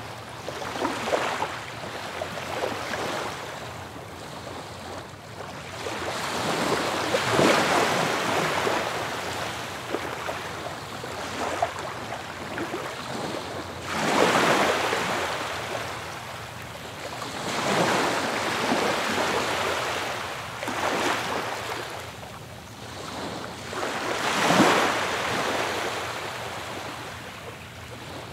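Ocean surf: waves breaking and washing up a beach, swelling and falling back every few seconds, with the loudest break near the end.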